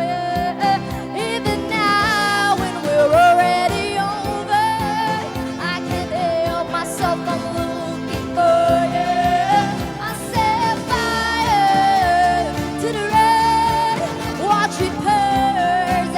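Music with singing: a voice carrying a gliding, wavering melody over steady instrumental accompaniment.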